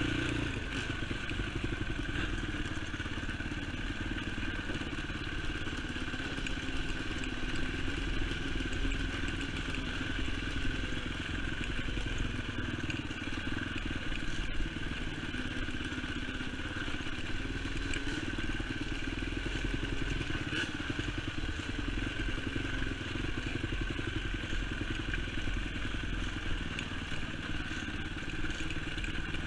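Honda TRX450 sport quad's engine running steadily while riding a bumpy dirt trail, heard from on board, with rattling and clatter from the bumps.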